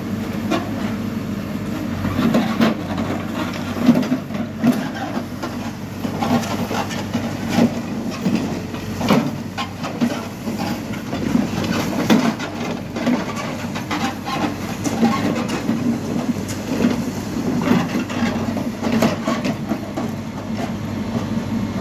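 HİDROMEK backhoe loader's diesel engine running steadily while the rear backhoe bucket works through gravel and soil in a trench. Frequent irregular knocks and clanks of the bucket and digging arm against stones sit over the engine drone.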